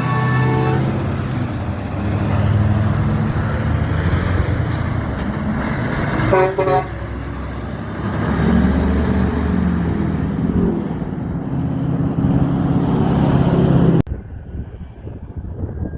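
Big trucks driving past with loud engine noise. A horn sounds at the very start, and a short horn toot comes about six and a half seconds in. Near the end the sound drops abruptly to quieter wind noise.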